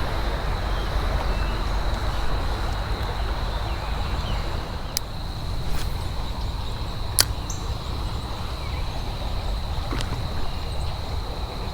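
Steady rushing noise of wading in a flowing creek, with a thin, steady high-pitched tone throughout and a few sharp clicks, the loudest about seven seconds in.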